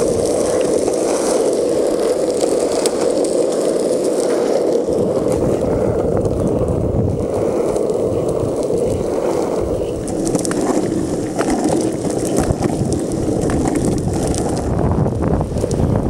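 Longboard's urethane wheels rolling steadily over rough asphalt: a continuous grinding rumble with small clicks from grit and cracks in the path. The low rumble grows heavier about two-thirds of the way through.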